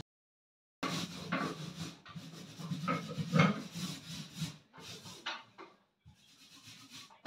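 A hand tool rubbing against a wall in irregular strokes, loudest about halfway through, as the wall is worked on for painting.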